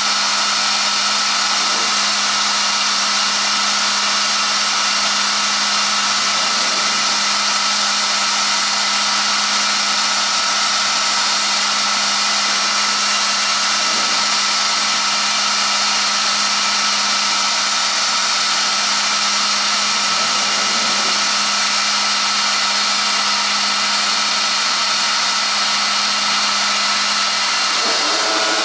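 Five-axis CNC router spindle running at high speed, a steady whine with a rush of air, as the router trims thermoformed plastic parts. Near the end a lower humming tone briefly joins in.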